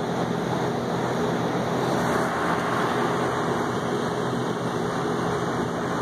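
Lennox LRP16 two-stage rooftop packaged unit running steadily on first-stage cooling: an even rush of air from the fan with a low, steady compressor hum. It is running on the lower, quieter stage, before the compressor steps up to second stage.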